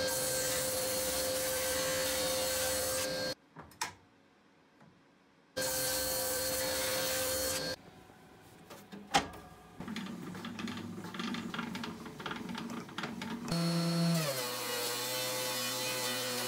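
Table saw running and ripping a pine board into thin strips, in two stretches with a short quiet gap between them. After some quieter handling sounds, a benchtop thickness planer runs, and its motor note drops as the strips feed in.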